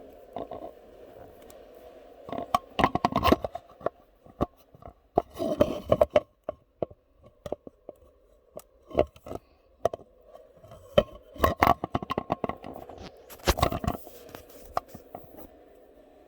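Irregular clicks, knocks and short scrapes of hand tools and metal parts being handled while working loose the bolts on a car's steering wheel and airbag.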